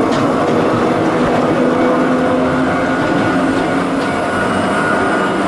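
Hakone Tozan Railway electric train cars running past at a level crossing: a steady rumble of wheels on rail, with steady whining tones over it.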